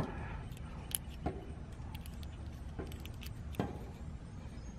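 Scattered small metallic clicks and clinks, about six of them, the loudest about three and a half seconds in, from test leads and clips being handled on an air conditioner's 45/5 dual run capacitor while it is tested, over a faint steady low rumble.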